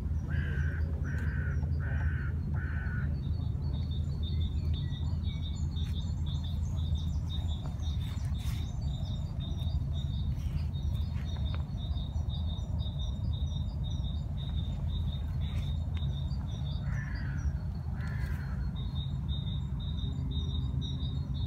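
A crow cawing four times in quick succession and twice more later, over a small bird's fast, steady high chirping and a steady low rumble.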